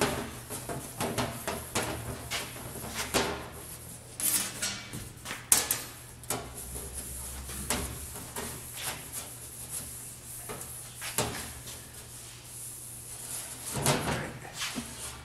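Thin aluminium sheet being wiped with a cloth rag and shifted on the rolls of a slip roller: rubbing swishes with scattered knocks and rattles from the loose panel, over a low steady hum.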